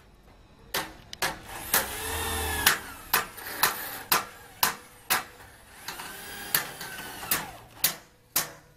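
Handheld power drill run in two short bursts against a steel floor channel, its motor whine rising and falling each time. Through it comes a series of sharp clicks about every half second.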